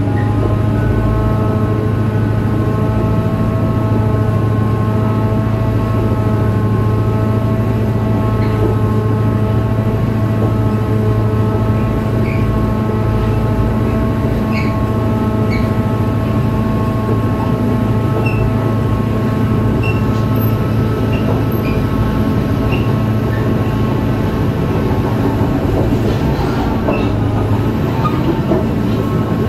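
EMD two-stroke V16 diesel engine of a Korail 7400-class locomotive running steadily under power as the locomotive moves off, a deep hum with a layered steady whine above it. Short faint chirps from the wheels come and go.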